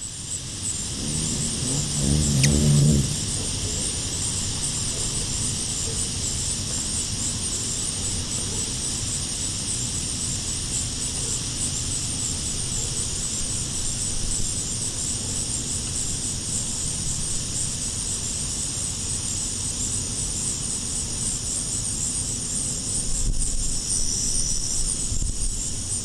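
Steady outdoor background of a high, pulsing insect chorus over a low rumble. About two seconds in, a brief low hum swells and fades: the wingbeats of a male ruby-throated hummingbird flying in to the feeder. A short high tone sounds near the end.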